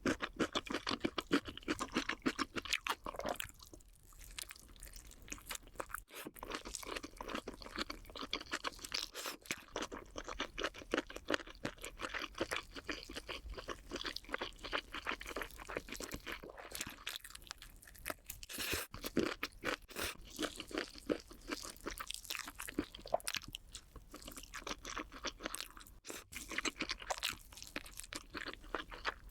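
Close-up chewing of crunchy food: a fast, steady run of crisp crunches, with a few short pauses.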